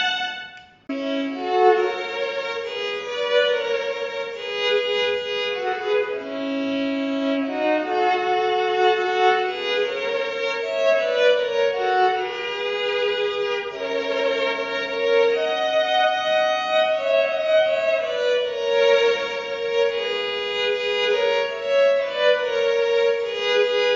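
Fretted electric violin bowed as single notes through a harmonizer effects pedal, which adds a second voice at a fixed interval so the melody sounds as double stops. The tune breaks off briefly about a second in, then runs on.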